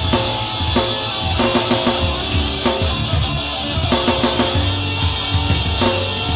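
Instrumental karaoke backing track with a steady drum beat and bass line, between sung verses.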